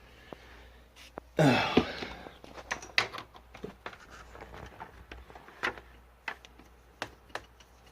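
Handling noise from setting up a desktop computer: a loud scrape and knock about a second and a half in, then scattered light clicks and knocks of the case and cables being moved.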